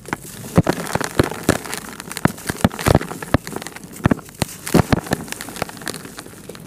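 Dry, dusty moulded red dirt bars crushed by hand, crumbling with dense, irregular crunches and crackles as loose crumbs and powder fall into a plastic tub.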